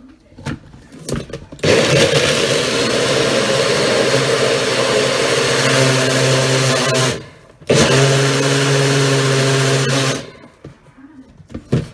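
Nutribullet blender motor running at full speed, blending fruit into a smoothie. It runs in two bursts, about five seconds and then about two and a half seconds, with a half-second break between them while the cup is eased off and pressed back down. A few short clicks come before and after as the cup is seated on the base and released.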